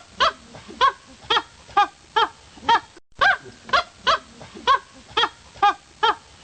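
Goose honking in a steady series, about two honks a second, with a brief break about halfway through.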